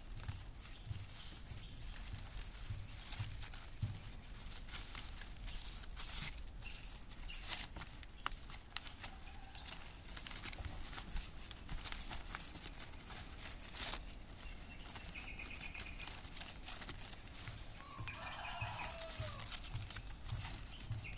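Dry pandanus leaf strips rustling, crinkling and clicking as they are folded, tucked and woven by hand.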